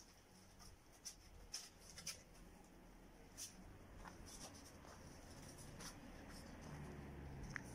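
Near silence, broken by a few faint, scattered clicks and scuffs.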